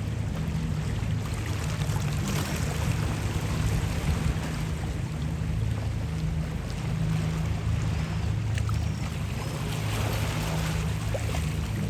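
A boat engine running steadily with a low hum, over a steady hiss of wind and water.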